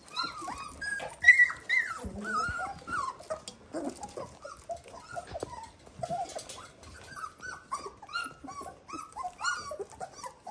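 A litter of 22-day-old Dalmatian puppies squeaking and whining, many short high cries overlapping in quick succession, loudest about a second in, with a few sharp clicks among them.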